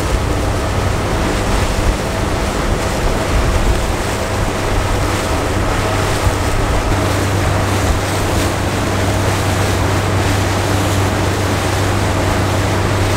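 Ferry boat's motor running steadily under way: a low, even hum with a few steady tones, mixed with wind and water noise.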